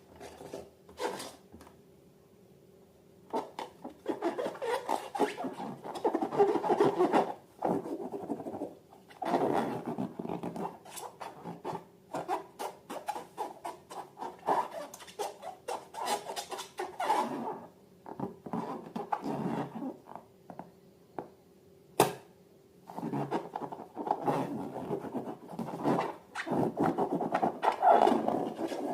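Balloons and slime being handled: irregular bursts of rubbing, scratching and squishing with short pauses between them, and a single sharp click about two-thirds of the way through.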